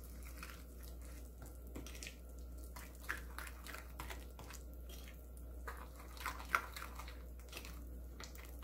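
Wooden spoon stirring a thick chili-paste seasoning in a ceramic bowl: faint wet squishing with irregular light clicks and scrapes of the spoon against the bowl.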